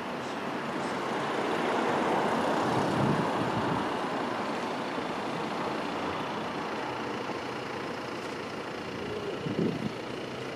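Street traffic noise, with a vehicle passing and growing louder about two seconds in, then fading; a couple of short knocks near the end.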